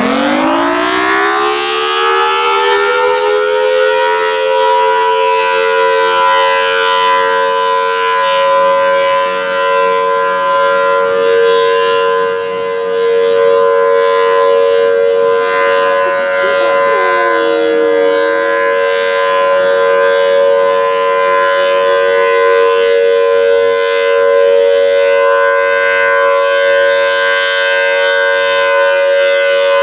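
Federal Signal Thunderbolt 1003 outdoor warning siren finishing its wind-up in the first few seconds, its pitch rising quickly to a steady two-note chord. It then holds that chord as the steady Alert signal, swelling and fading slightly as the horn rotates.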